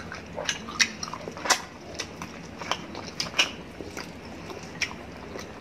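Chewing and biting into spit-roasted chicken (lechon manok) close to the microphone: irregular sharp mouth clicks, about two or three a second.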